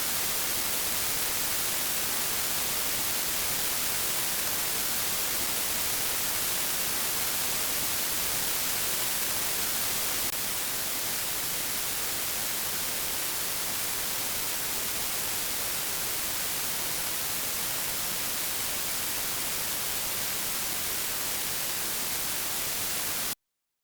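Steady static hiss, like white noise, a little quieter from about ten seconds in, cutting off abruptly near the end.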